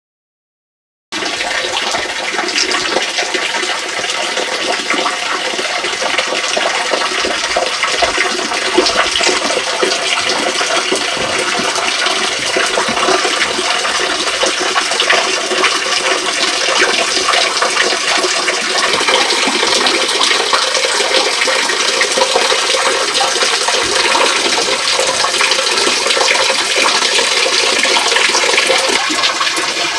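Small waterfall splashing steadily into a clear pool below: an even, bright hiss of falling water with little low rumble, starting suddenly about a second in.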